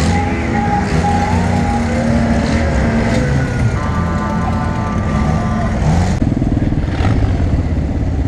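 Motorcycle and off-road buggy engines running at low speed. From about six seconds in, a nearby engine idles with a fast, even putter.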